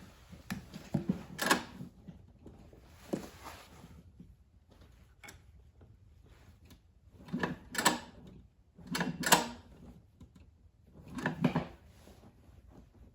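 Short bursts of metallic clicking and rattling from hand tools working on a small inverter generator engine, about five in all. The first, about a second and a half in, is the loudest.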